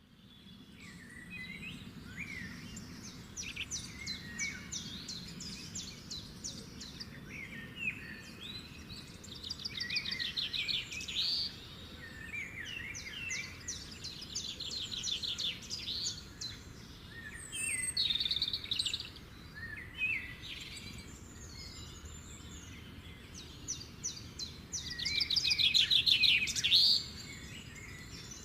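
Birds chirping and singing: repeated bouts of rapid high trills, each a couple of seconds long, mixed with short chirps, the loudest bout near the end. A steady low background noise runs underneath.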